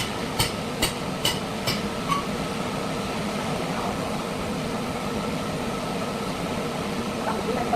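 Hammer blows, about two a second, for the first two seconds, over a steady machine hum with a held tone. The hum then continues alone.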